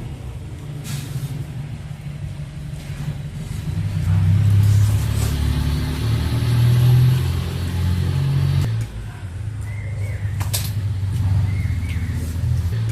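A steady low engine-like rumble that swells in the middle and drops off sharply about nine seconds in, with a few clicks and short high chirps near the end.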